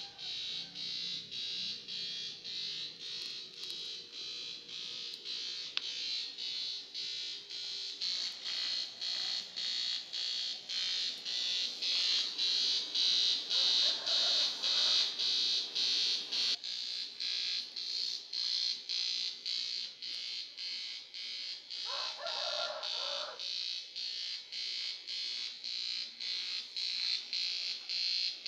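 TIG welder arc on an aluminium bicycle frame: a steady high-pitched buzz that pulses about three times a second.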